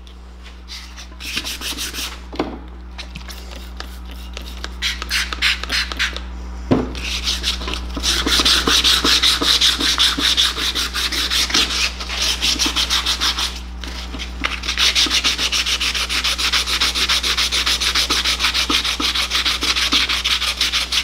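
3M 150-grit wet/dry sandpaper rubbed by hand over a wet, corroded aluminium Honda CBX clutch cover in quick back-and-forth strokes: the first, coarse stage of cleaning the cover up before polishing. The strokes start about a second in, grow louder from about eight seconds in, and pause briefly around fourteen seconds.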